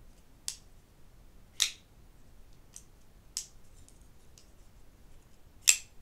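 Spartan Blades Talos folding knife being flicked open and shut in the hand, the blade snapping open and closed with sharp metallic clicks: four clear clicks with two fainter ticks between them, the last one the loudest.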